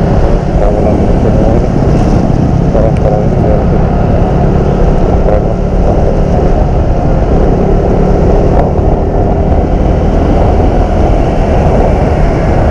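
Wind rushing over the microphone and the Yamaha NMAX 155's single-cylinder engine running steadily while the scooter cruises at about 30 to 35 km/h. The rumble is loud and unbroken.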